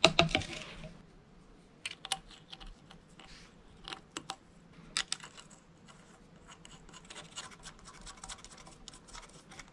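Hands handling a steering wheel and setting small metal screws into the holes of its hub. There is a knock and rustle at the start, then scattered light clicks and scratches of metal on the wheel.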